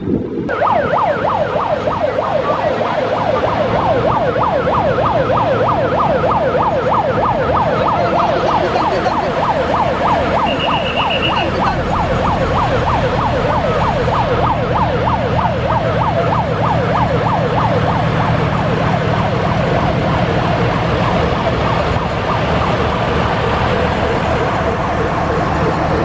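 A warning siren with a fast up-and-down warble, several sweeps a second, over the steady low running of a heavy lorry's diesel engine.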